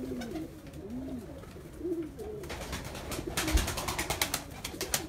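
Domestic pigeons cooing: a series of low, arching coos. In the second half there is a quick run of sharp clicks and one low thump.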